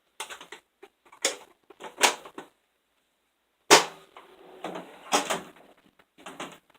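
Metal hand tools being handled in a tool box: a run of short clinks and knocks, with one sharp metallic clank about four seconds in that rings briefly.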